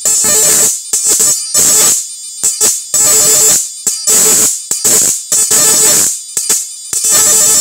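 Electric arc from a homemade 7000 W IGBT inverter fish-shocking machine, its output lead sparking against a metal rod: a loud buzzing crackle with a steady hum under it. It comes in about eight irregular bursts, each under a second long, cutting off sharply between contacts.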